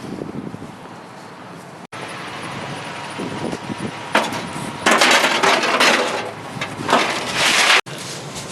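Junk being handled and rummaged through in a trash pile: rustling and clattering of hard objects, louder in the second half. The sound breaks off abruptly twice.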